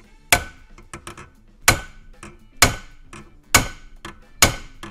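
Small hammer striking a punch to drift an old factory rear sight sideways out of the dovetail in a CZ75 SP-01 Shadow slide held in a vise: five hard blows about a second apart, with a few lighter taps between some of them.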